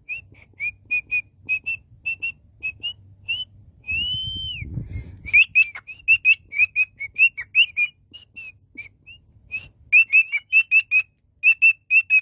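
A pet talking bird whistling a tune: a run of short, clear whistled notes, one longer arching note about four seconds in, then a quicker string of notes.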